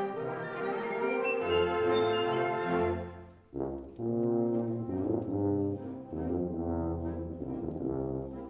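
Concert band playing held, brass-heavy chords with low notes sounding underneath. The music drops away briefly about three seconds in, then a new chord comes in sharply.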